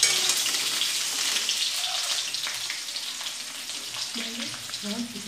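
Steady sizzle of food frying in oil, with a spoon stirring wet spice paste in a steel bowl; the sizzle eases off slowly.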